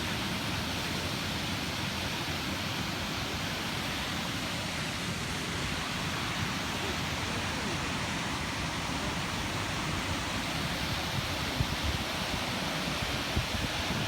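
Waterfall rushing, a steady even wash of falling water, with a few brief low bumps near the end.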